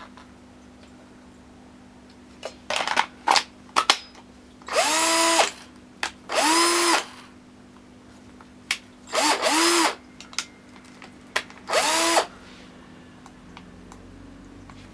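Black+Decker cordless drill driver run in short trigger pulls: a few quick blips, then four runs of about a second each. The motor whine rises in pitch as it spins up each time. It is running on a battery pack freshly rebuilt with new NiCd cells.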